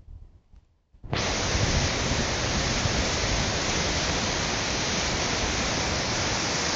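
Water rushing steadily down a dam spillway, a dense even wash of noise that starts abruptly about a second in.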